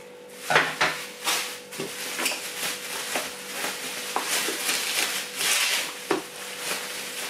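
Plastic bubble wrap being handled and unwrapped by hand: irregular crinkling and rustling, with sharper crackles about half a second and a second and a half in. A faint steady hum underlies it.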